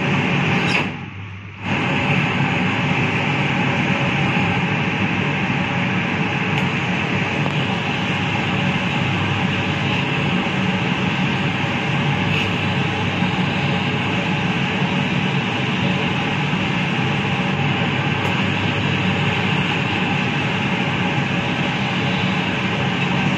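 Vacuum ironing table's suction blower running with a steady, loud drone. It cuts out briefly about a second in and stops again near the end.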